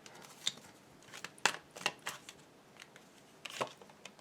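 Tarot cards being handled on a table: a series of short sharp snaps and taps, the loudest about one and a half seconds in.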